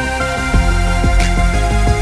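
Background music: held tones over a steady beat.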